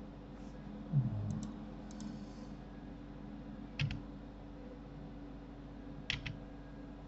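Sparse computer keyboard and mouse clicks as shortcut keys are pressed: faint ticks about one and two seconds in, then sharper clicks about four and six seconds in. A low thump comes about a second in, over a steady low hum.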